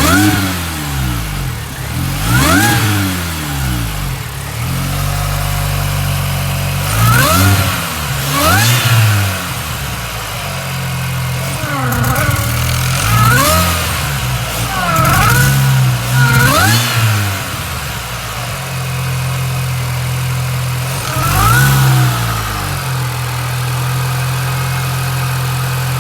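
2006 Mini Cooper S R53's supercharged 1.6-litre four-cylinder engine running on freshly fitted spark plugs, blipped about nine times from idle and settling to a steady idle near the end.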